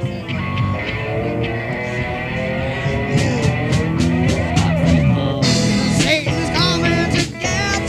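Improvised psychedelic rock jam with guitar, its pitches sliding up and down. About five and a half seconds in, a brighter, wavering high part comes in over it.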